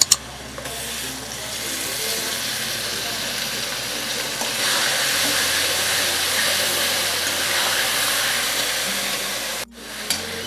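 Wet ground spice paste sizzling in hot mustard oil with fried potatoes in a steel kadai as it is stirred with a steel spoon. It opens with a couple of sharp clinks of the steel bowl against the pan; the sizzle builds over the first two seconds, holds steady and cuts off abruptly near the end.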